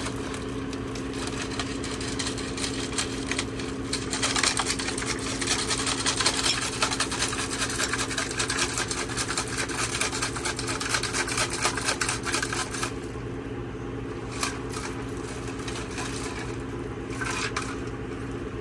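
Rocks rattling inside a gas tank as it is shaken to scour rust and varnish off its inside walls, a dense fast rattle from about four seconds in to about thirteen seconds, then a few single knocks. A steady low hum runs underneath.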